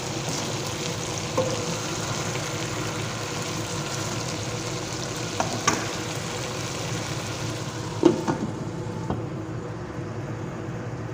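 Chicken with tomato, bell pepper and potato sizzling in a pot, with a few sharp clinks, the loudest about eight seconds in. The hiss softens near the end.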